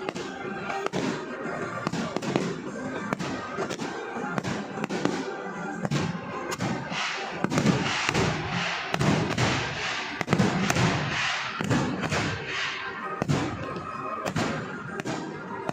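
Fireworks going off in a steady run of sharp bangs, about two a second, thickening into dense crackling through the middle stretch, with music playing underneath.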